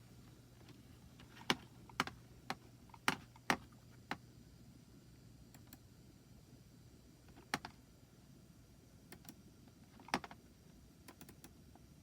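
Scattered clicks of a computer mouse and keyboard: a run of about six in quick succession in the first few seconds, then single clicks around the middle and near the end.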